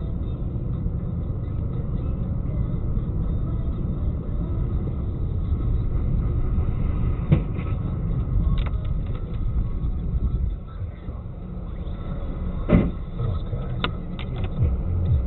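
Low, steady rumble of a car driving, recorded by a dashboard camera. A few short knocks cut through it, with a louder thump about 13 seconds in.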